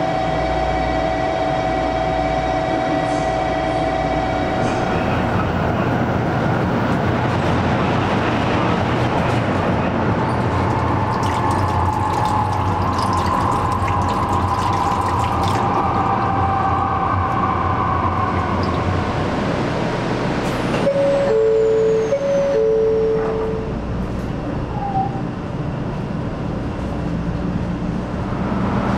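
Steady running noise of a Shinkansen bullet train heard from inside its lavatory, with the rush of an automatic tap running over a hand at the washbasin midway. Near the end a two-note tone sounds, a higher note then a lower one.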